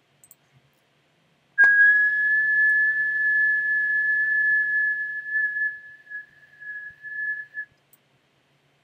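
A person whistling one steady high note, starting about a second and a half in with a slight upward slide and held for about six seconds. It grows weaker and unsteady over its last two seconds before stopping.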